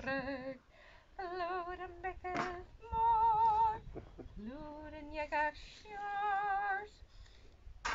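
A woman singing unaccompanied: long held notes with a wide vibrato, sung in short phrases with brief breaths between them.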